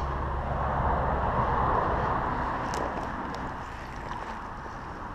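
Shallow stream water running, a steady hiss that swells and then eases, with a couple of faint clicks.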